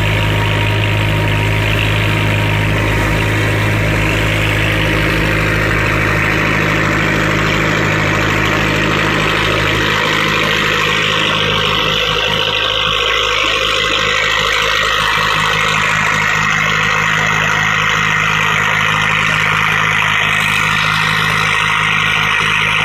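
An engine running steadily, its low hum under a loud, even rushing noise; the low hum drops back a little about ten seconds in.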